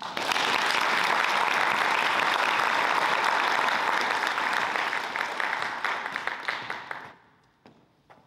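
Audience applauding, with steady clapping that thins out and stops abruptly about seven seconds in.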